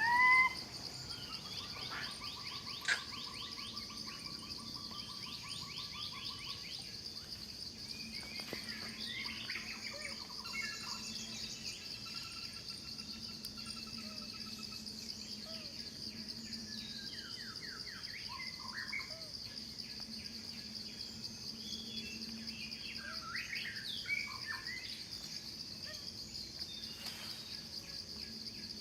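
Outdoor wildlife ambience: a steady, high-pitched insect drone throughout, with assorted bird calls and chirps over it. There is a loud rising call right at the start, then a long even trill over the next several seconds.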